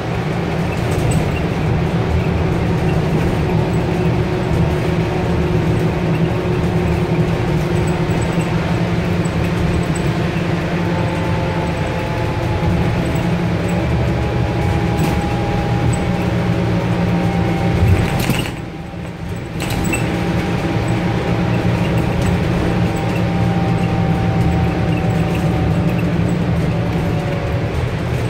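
Alexander Dennis Enviro 400 double-decker bus on a Scania N230UD chassis under way, heard from the upper deck: steady diesel engine drone and road rumble, a faint whine that slowly falls in pitch, and light rattles from the interior fittings. About two-thirds of the way through, the noise briefly drops away for about a second.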